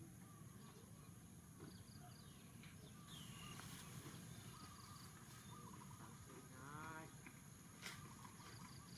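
Faint high animal chirps and squeaks over a low background rumble, with one falling call a third of the way in, a longer pitched call around two-thirds in, and a single sharp click near the end.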